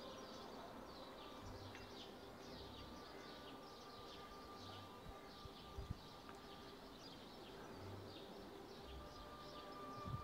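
Faint outdoor ambience with quick high chirps repeating a few times a second, and two soft knocks, one about six seconds in and one near the end.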